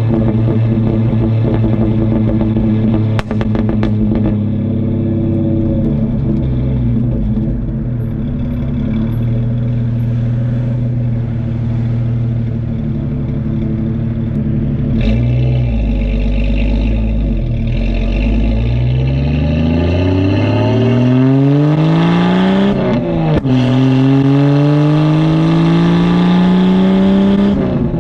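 Straight-piped Jeep Cherokee exhaust, first cruising steadily, then pulling hard with the pitch rising. The revs drop sharply at a gear change about 23 seconds in and climb again. A single sharp crack sounds about 3 seconds in.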